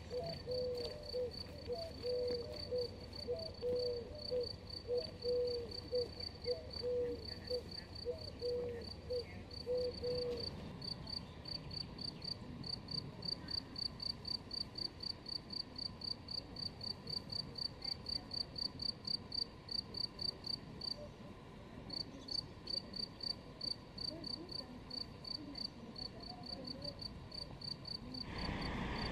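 An insect chirping steadily, a high, even chirp repeated about three times a second. In the first third a lower call repeats alongside it, and a broad rushing noise comes in near the end.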